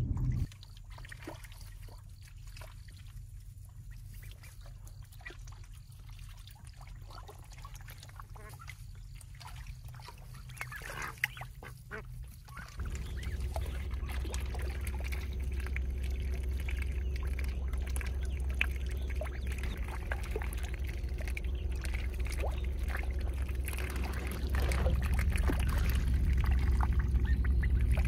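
Ducks and ducklings quacking as they paddle in a shallow stream. About halfway through, a steady low rumble sets in and grows louder near the end.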